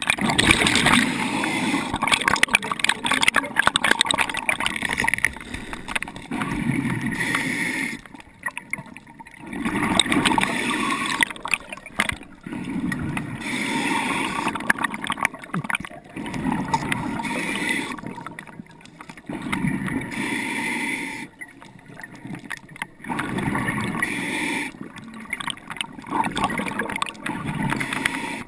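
Underwater breathing through a scuba regulator: rhythmic surges of bubbling and hiss every few seconds, with short quieter gaps between breaths.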